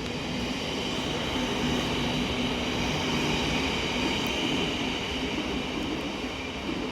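Electric passenger train running through the station: a steady rail rumble with a steady whine over it, swelling slightly midway.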